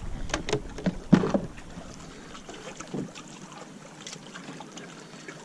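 Scattered knocks, clicks and rustles of a fish being handled on a fishing kayak, with a few brief low thuds early on and about three seconds in.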